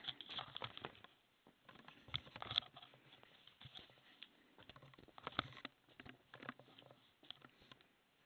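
Faint, irregular clicks and taps, scattered unevenly, with the louder clusters about two seconds in and again around five seconds in.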